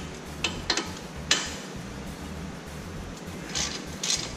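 A ratchet with a T55 Torx socket working the mounting bolt of a Porsche 987 front brake caliper loose: a few sharp metal clicks and knocks, the loudest about a second in, then short runs of ratchet clicking near the end.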